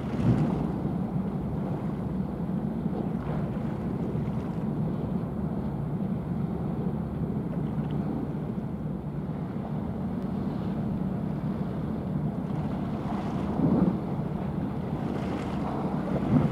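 Steady low drone of a passing small cargo ship's engine over water, with wind buffeting the microphone in gusts just after the start and twice near the end.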